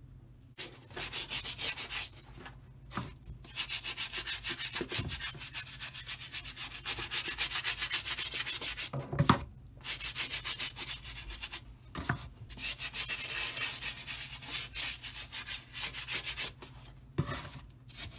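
Quick, even back-and-forth hand rubbing strokes on a shoe, a scrubbing or sanding sound, in runs of a few seconds broken by short pauses.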